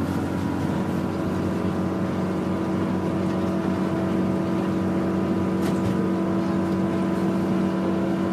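Car engine running at a steady, unchanging pitch with road noise underneath, heard from inside the car while it drives on.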